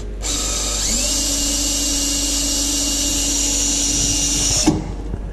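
Electric drill with a bit attachment driving a screw: the motor spins up with a rising whine, runs steadily for about four seconds, then stops abruptly.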